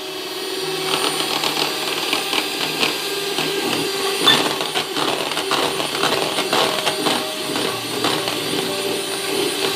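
Electric hand mixer running steadily, its beaters churning a thin cream-and-milk ice-cream mixture in a plastic bowl. A constant motor hum with frequent small clicks and knocks of the beaters against the bowl.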